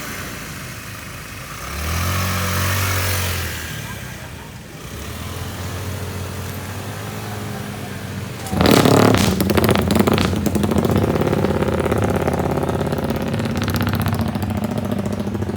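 Drag-racing motorcycle engines: one runs steadily with a low note, then about eight and a half seconds in a much louder motorcycle engine starts revving hard close by and stays loud.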